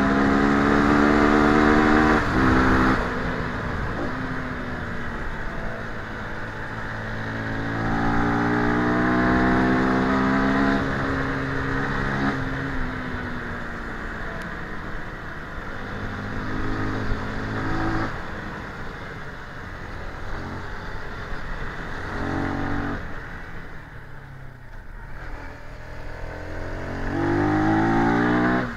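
CFMoto 300NK's single-cylinder engine being ridden hard: it pulls up in pitch several times under throttle, and the revs drop away between pulls as the throttle closes. The strongest pulls are at the start and near the end.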